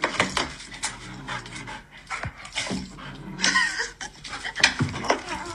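Golden retriever panting in quick, irregular breaths.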